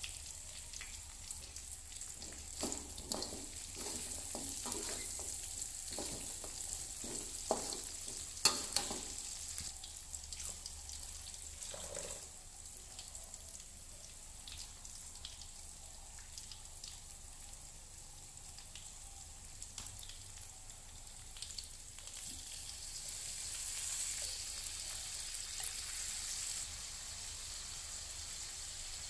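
Chicken pieces sizzling in oil in an aluminium wok, with a metal spatula scraping and knocking against the pan through the first third. The sizzle swells louder for a few seconds near the end.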